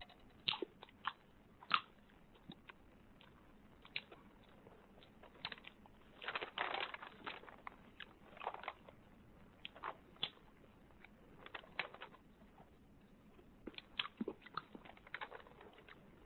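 A man eating: chewing and biting into food, heard as a scatter of short crunches and clicks, densest about six to seven seconds in.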